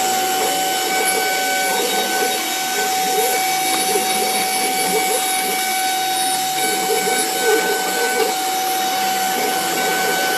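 CNC router spindle running steadily with a constant high whine over a hiss.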